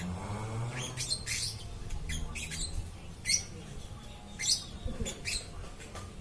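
Lovebird calling in short, shrill chirps and squawks, repeated every half second or so. The sharpest come about three and four and a half seconds in.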